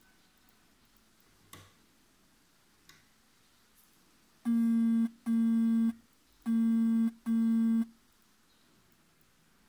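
Electronic buzzer beeping four times in two pairs, a low, buzzy steady tone, starting about halfway through.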